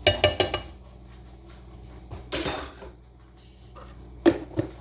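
Kitchen utensils and cookware clattering: a quick run of clinks at the start, a short hiss about two seconds in, and two sharp knocks near the end.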